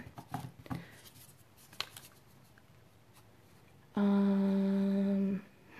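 Faint rustling and light clicks of a paper scrap being handled, then a woman humming a single steady "mmm" for about a second and a half near the end, as if puzzling something out.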